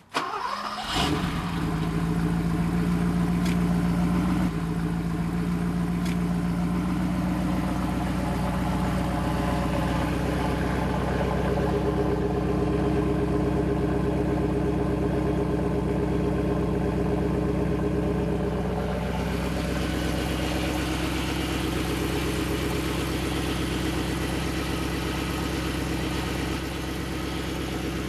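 Handheld electric power tool running steadily, spinning a 1979 Triumph Spitfire differential's ring and pinion with a whir of gears. It starts suddenly, and its pitch sags slightly a couple of times as one wheel is slowed by hand, so the spider gears inside the carrier turn and the other wheel speeds up.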